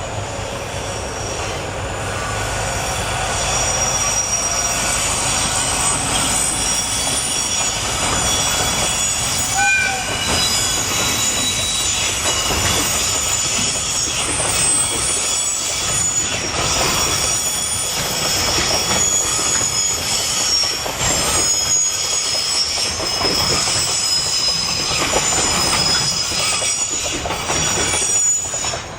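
Freight train hauled by a diesel locomotive rolling past: a low engine hum at first, then a steady high-pitched squeal of the wagons' wheels with a clickety-clack over the rail joints. There is a brief pitched toot about ten seconds in.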